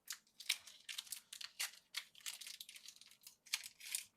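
Trading-card packaging crinkling and crackling as it is handled and opened, a quick irregular run of short crackles.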